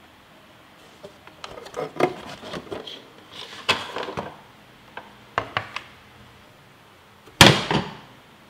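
Hard plastic charger and battery pack knocking and scraping against a hard plastic tool case as they are lifted out. Then, about seven seconds in, one loud clack as the case lid is shut.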